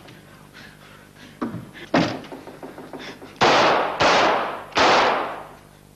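A couple of light knocks, then three loud sharp bangs in quick succession, each dying away over about half a second.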